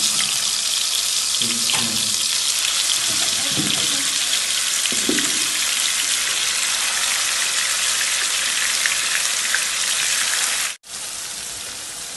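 Marinated chicken pieces sizzling as they fry in hot oil in a frying pan: a steady, loud hiss. Near the end it cuts to a quieter sizzle of a fuller pan.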